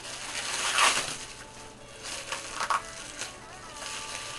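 Black plastic wrapping being crinkled and torn off a package by hand, in several rustling bursts, the loudest about a second in.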